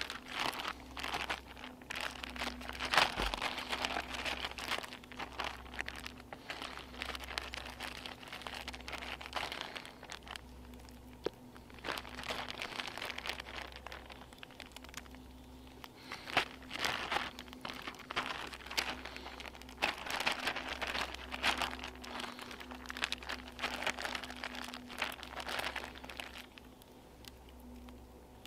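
Crinkling and crunching of packaging being handled and torn, in irregular bursts of a few seconds with short pauses between them.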